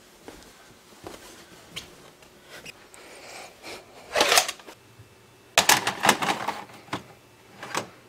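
Plastic handling noises in a small room: a CD case scraped out of a tightly packed shelf about halfway through, then a quick run of sharp plastic clicks and rattles as the case is handled. Near the end comes a click from a VCR's front-panel button being pressed.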